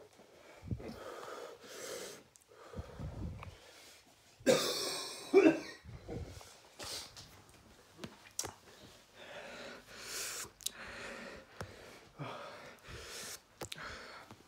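A man coughing and breathing hard in a string of short breaths, about one a second, from the burn of a shot of extremely hot sauce. The loudest cough comes about four and a half seconds in.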